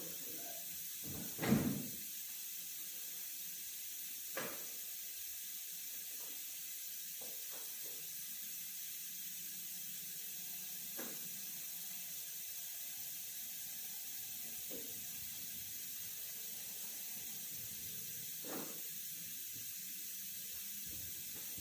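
Steady background hiss broken by a few short, isolated knocks, the loudest about a second and a half in and fainter ones spread through the rest.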